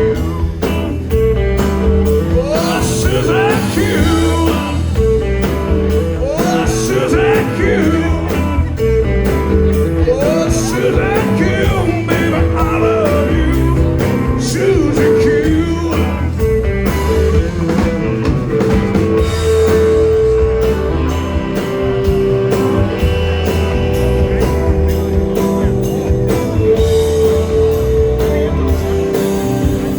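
Rock song with singing over guitar and a steady drum beat; the vocal line is clearest in the first half.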